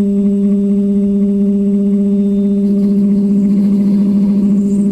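Tormek T7 wet sharpener's electric motor running with a steady hum while the knife edge is polished on its leather honing wheel; a rougher layer of sound joins about three seconds in.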